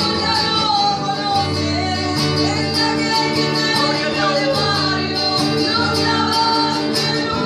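A woman singing a song into a microphone, accompanying herself on an acoustic guitar.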